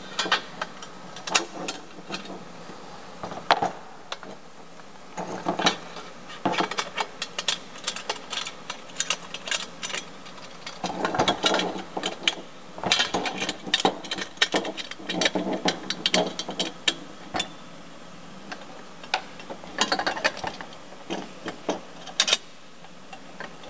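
Metal clicking and clinking as a V-band clamp and a wastegate are handled and seated on the flange of a stainless steel turbo pipe. The clicks come in uneven clusters, with a lull of about two seconds about three-quarters of the way in.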